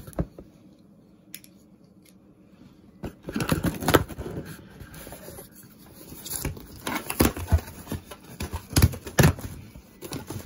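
A cardboard shipping box and its packaging being handled and opened: irregular rustling, scraping and sharp knocks. They start about three seconds in, after a quiet stretch.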